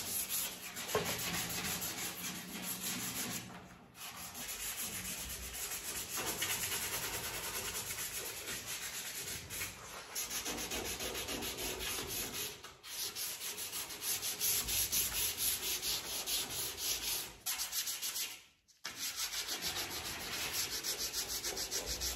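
Sandpaper rubbed by hand over the primed steel door jambs of a Chevy C10 truck cab, in quick back-and-forth rasping strokes that stop briefly a few times.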